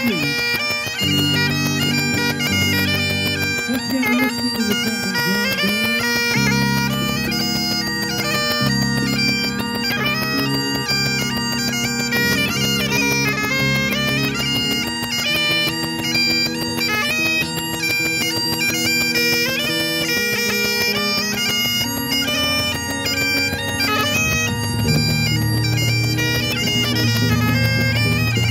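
Highland bagpipes played: a steady drone under a fast-moving chanter melody.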